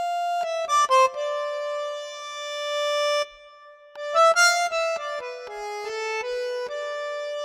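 Background music: a melody of clean, reedy electronic notes that breaks off briefly about halfway through and then resumes.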